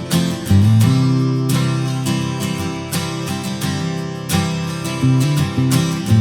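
Background music led by strummed acoustic guitar with a changing bass line.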